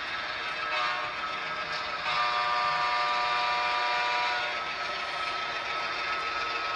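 HO-scale BNSF diesel locomotive's onboard sound blowing its horn: a brief toot about a second in, then a longer blast from about two seconds in that fades out after about four seconds, over a steady engine hum.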